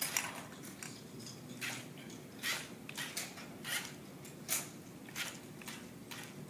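Steady room hum with a dozen or so irregular short clicks and rustles.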